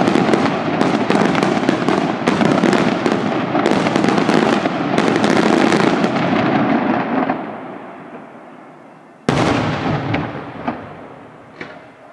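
Daytime aerial fireworks: a dense run of rapid bangs and crackles that fades out about seven seconds in, then one single loud bang about nine seconds in that echoes away, followed by a couple of smaller pops.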